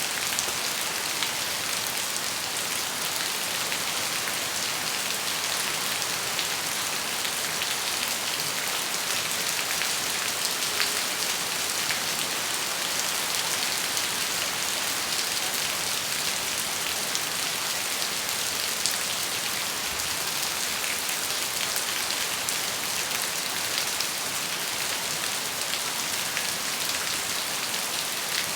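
Steady rain falling, an even hiss with many small drop impacts ticking through it, holding at a constant level.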